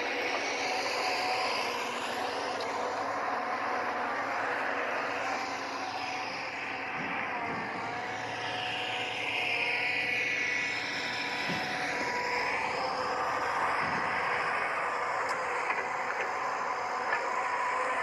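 Huina radio-controlled excavator's electric drive motors whining as the boom, arm and bucket move, the whine rising and falling in pitch as the movements change.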